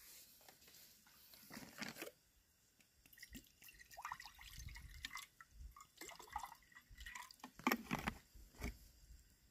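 Water poured from a plastic bottle into an aluminium cooking pot, splashing and gurgling in uneven spurts over several seconds, with a few sharp knocks near the end.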